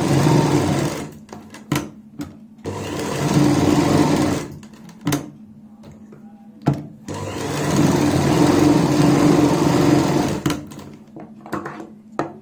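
Sewing machine stitching a seam along the edge of a fabric sleeve cuff, running in three bursts that each build up over about a second, with clicks and knocks between them as the fabric is handled and repositioned.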